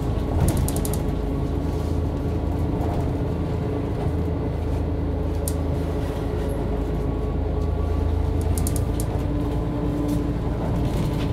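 Mercedes-Benz O 405 N2 city bus, heard from on board, its engine running with a steady low drone and a few light rattles from the body, near the start and again about eight seconds in.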